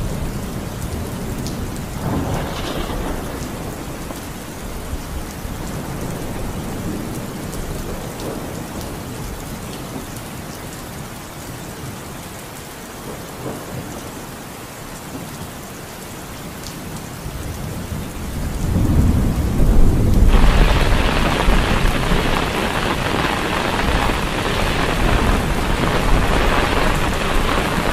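Heavy rain pouring onto floodwater, a steady dense hiss. A deep rumble swells a little past the middle, and just after it the rain suddenly becomes louder and brighter.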